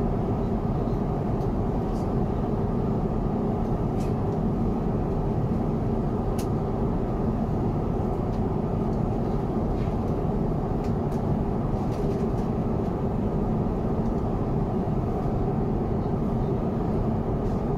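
Steady airliner cabin noise aboard an Airbus A350-900: an even, low rush of air and engine noise, with a few faint clicks.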